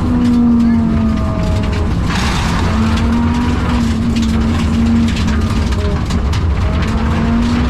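Rally car engine running hard under load, heard from inside the car over a constant road rumble, with scattered ticks and a brief rush of noise about two seconds in. The engine has a bad misfire and is down on power.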